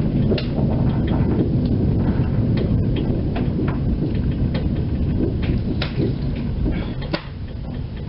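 Kirnitzschtalbahn tram running along its track, heard from inside: a steady heavy rumble of wheels on rails with short sharp squeaks and clicks from the wheels on the curving track. The rumble eases a little near the end.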